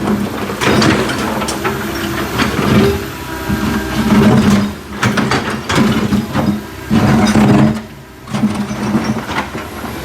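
Backhoe engine running, swelling and easing off every second or so, with repeated metal clanks and knocks from the working machine.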